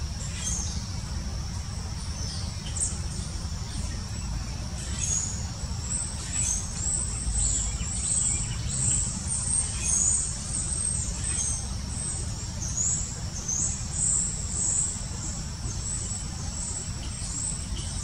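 Female pileated woodpecker pecking and prying bark from a log, giving scattered soft knocks every few seconds. Under them runs a steady low rumble, with high-pitched chirping of small birds most of the way through.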